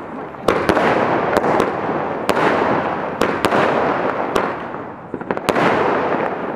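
A 100-shot multi-shot firework cake firing its shells in sequence: about ten sharp bangs at uneven intervals of roughly a third of a second to a second, over a steady hiss between them.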